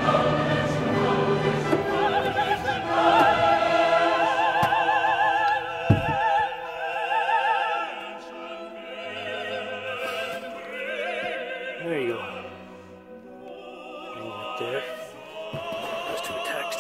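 Background music: classical operatic singing with orchestra, the voices wavering with vibrato, with a single sharp click about six seconds in.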